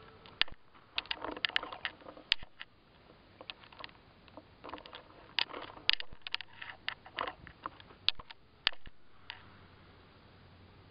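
Camera handling noise: irregular clusters of sharp clicks and taps, with quiet stretches between them.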